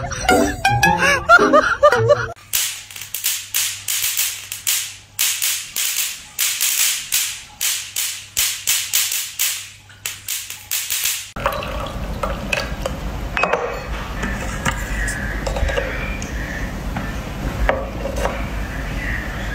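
A run of sharp crackling snaps over a low hum for several seconds: an electric mosquito-swatter racket zapping as it is brushed over a golden retriever's fur. Near the end come small clinks of little tea cups and pouring at a tea tray. A brief stretch of music opens it.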